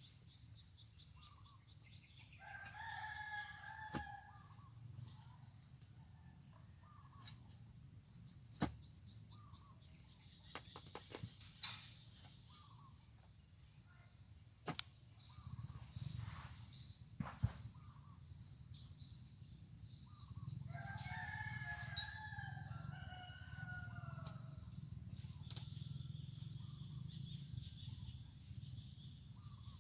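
A rooster crowing twice: a short crow about three seconds in, and a longer one about twenty-one seconds in that falls in pitch at the end. Scattered sharp knocks and a steady high insect chirring run underneath.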